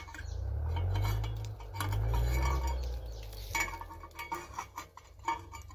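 Metal clinking and scraping as a small turbo-whistle insert is pushed and worked into the outlet of a tractor's exhaust pipe by hand. There is a low rumble in the first half and a run of short clicks in the second half.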